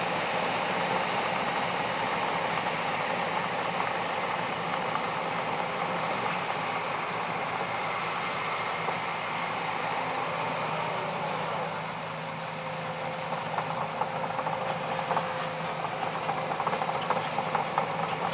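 Heavy diesel earthmoving machinery running steadily. In the second half come irregular clattering knocks.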